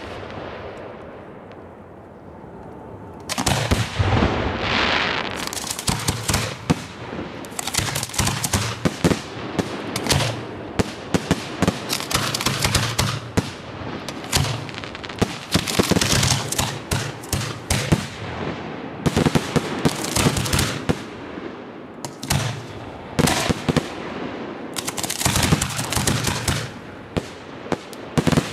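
Professional display fireworks: shells launching from mortars and bursting in a rapid, overlapping barrage of sharp bangs and cracks. The barrage starts about three seconds in and runs on thick and fast.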